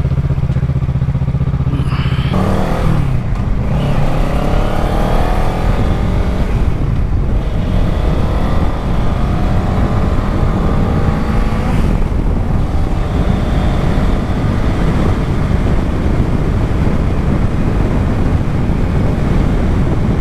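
Kawasaki Ninja 650 parallel-twin motorcycle engine under way: a steady note for the first two seconds, then rising in pitch again and again over the next ten seconds as the bike accelerates through the gears, with wind rushing over the microphone throughout.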